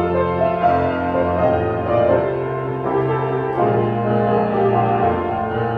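Piano playing an instrumental passage of a choir anthem, chords changing about every half second to second, with no voices singing.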